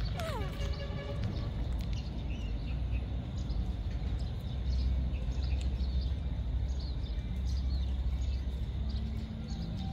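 Outdoor background: a steady low rumble with scattered faint bird chirps. Right at the start, a short call slides down in pitch.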